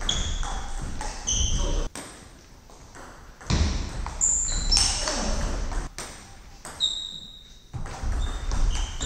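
Table tennis rally in a sports hall: sharp clicks of the ball off the rackets and table, with several short high squeaks of the players' shoes on the hall floor.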